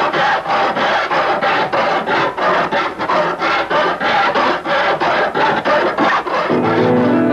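Hand file rasping over metal in steady repeated strokes, about three a second. Music with held notes comes in near the end.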